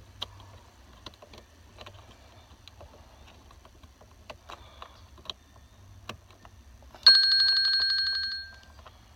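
Light clicks and taps of parts being handled, then about seven seconds in a loud ringing chime that sets in suddenly, holds for about a second and a half, and fades away.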